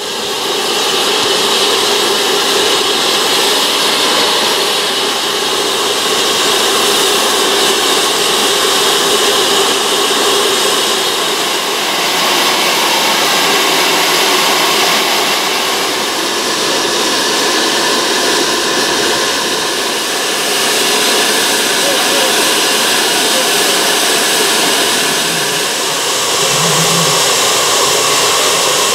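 LSWR M7 class 0-4-4 tank steam locomotive standing and venting steam in a loud, steady hiss that does not pulse.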